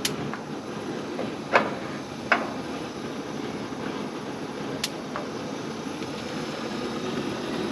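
Gas burners of a Blackstone griddle running with a steady low rush, and the push-button piezo igniter snapping four times as the next burner is lit.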